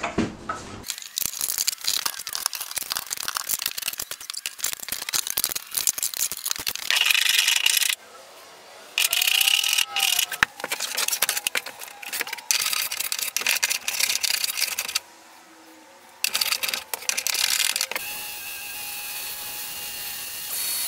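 Woodshop work in quick succession: a run of clicks and knocks as bar clamps are set and tightened on a glued cabinet carcass, then repeated strokes of a block plane on a white oak slab. In the last few seconds a random orbit sander with a dust-extraction hose runs steadily on the slab.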